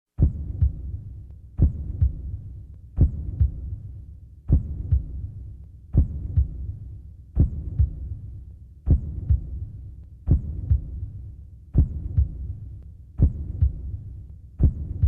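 Heartbeat: slow, steady double thumps (lub-dub) about every second and a half, with a low rumble between beats.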